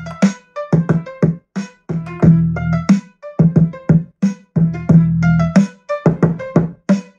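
Electronic music with a drum machine beat and heavy bass, played loud through an Ural Molniya 280 portable Bluetooth speaker.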